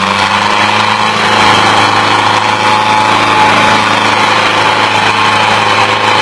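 Diesel tractor engines of a John Deere and a Sonalika running steadily and hard under heavy load as the two pull against each other in a tug-of-war.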